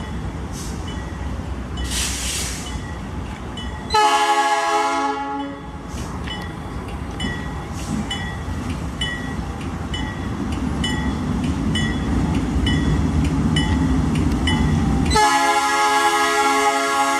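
GE C30-7 diesel-electric locomotive rumbling as it approaches, sounding its multi-tone air horn twice: a blast about four seconds in that fades within two seconds, and a second long blast starting near the end.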